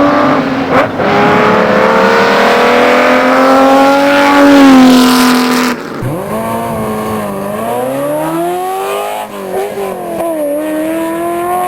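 Racing car engine at high revs, its pitch climbing slowly with a brief dip, then a sudden change about six seconds in to another engine whose pitch falls and rises several times as it shifts.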